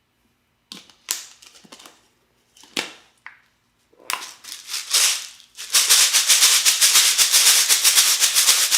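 Rice rattling inside a small plastic water bottle used as a homemade shaker. First come a few separate rattles, then a single longer shake about four seconds in, then fast, continuous shaking from about six seconds in.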